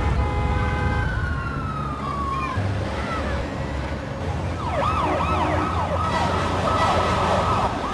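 A siren-like tone: a slow falling wail, then a rapid up-and-down warble from a little past halfway, over a steady low rumble.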